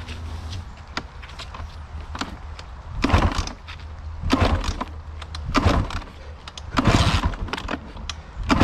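Sherco trials bike being kick-started again and again without catching: from about three seconds in, five kicks about a second and a quarter apart, each spinning the engine over briefly before it dies away. The bike refuses to start after the crash.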